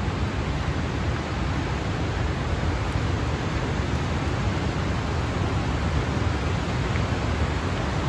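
Steady rushing of a waterfall, an even roar of falling water with no breaks.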